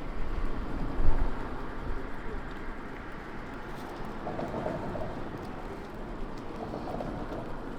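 City street ambience: a steady low rumble of traffic with faint voices in the background, and a loud low thump about a second in.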